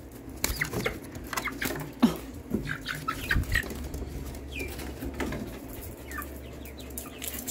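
Young chickens, almost eight weeks old, giving scattered soft peeps and clucks, with small taps and rustles among them and a sharper knock about two seconds in.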